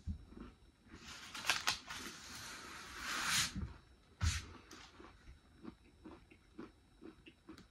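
Biting into and chewing a rock-hard freeze-dried cheesecake bite: a dense, crackling crunch as it crumbles, with a louder burst about three seconds in, then a knock and scattered small crunches of chewing.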